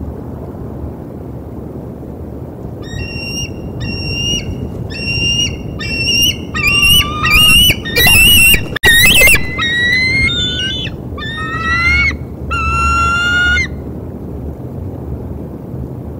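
Bald eagle calling: a run of about eleven high, piping notes that grows louder toward the middle and then eases off, the last few notes each rising in pitch.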